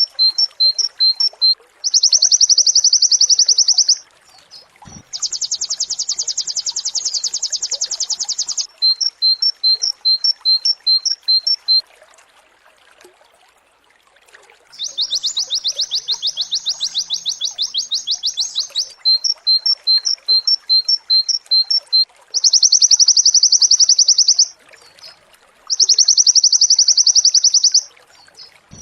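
Pleci (white-eye) song: rows of short sharp high notes, about four or five a second, alternating with long rapid trills of two to four seconds each, the 'nembak' bursts, repeated over and over. There is a short break about halfway through.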